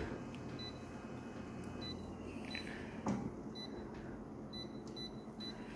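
Office photocopier running with a faint low hum, while its touchscreen gives short high beeps as options are pressed. There is one sharp click about three seconds in.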